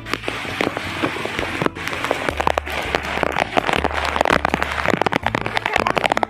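Heavy rain falling hard, many close drop hits in quick succession, with a low rumble that comes and goes.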